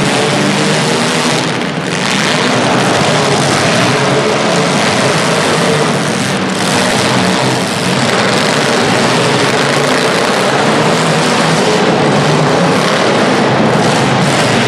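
Several small-car demolition derby engines running hard at high revs together, a dense, loud, steady mechanical din.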